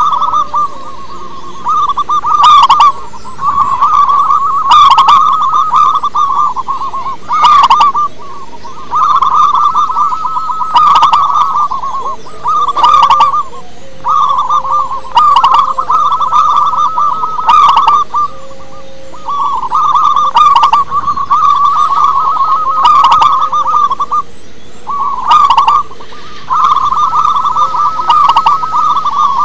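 Zebra dove cooing: a quick, trilled run of coos, phrase after phrase, about one every two seconds with short pauses. A few notes come out sharp and much louder than the rest.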